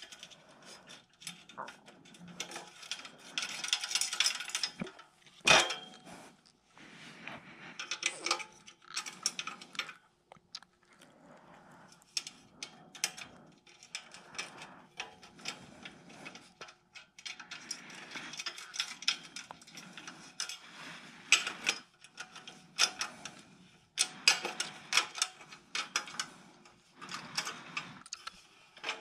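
Aluminium tubing of a fishing cart being handled and fitted together by hand: irregular clicks, scrapes and knocks of metal on metal, with one sharper knock about five and a half seconds in.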